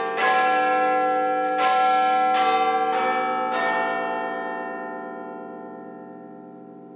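Bell-like chimes struck about five times in the first few seconds, the notes overlapping, then ringing on and slowly fading away.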